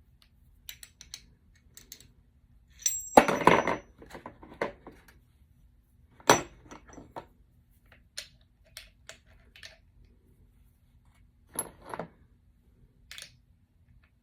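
Metal clinks and knocks as a copper-pipe press tool and its crimping jaws are handled and fitted, with a louder metallic clatter about three seconds in and a sharp ringing clink about six seconds in.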